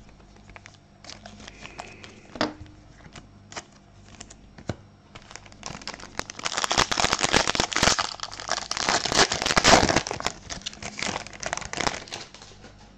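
Foil wrapper of a 2020 Panini Prizm football card pack being torn open and crinkled: a few light clicks and rustles, then dense crinkling from about halfway in that dies away near the end.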